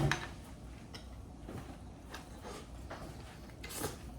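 Small handling noises: a knock at the start, a few faint clicks, and a brief scrape near the end.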